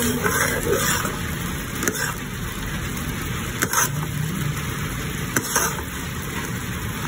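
Thick white sauce boiling in a pan on the stove, a steady bubbling hiss, while a metal spoon stirs it and clinks against the pan a few times.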